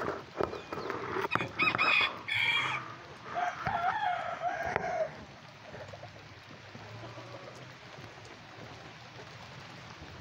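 Bantam rooster crowing, a long wavering call that ends about five seconds in, with other chicken calls just before it. After that only a steady hiss of rain.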